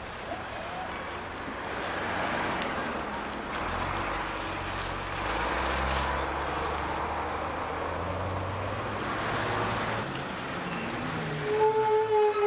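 A road vehicle passing, its low engine rumble swelling through the middle and fading.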